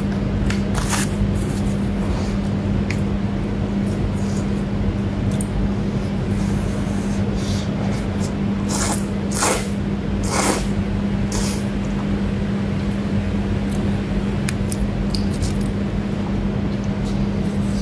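Close-up eating sounds: short, wet chewing and smacking noises at irregular moments, heaviest about halfway through. They sit over a steady low hum and hiss.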